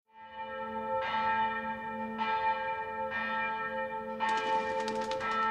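Church bells ringing, fading in from silence, with a new stroke about once a second, each ringing on into the next.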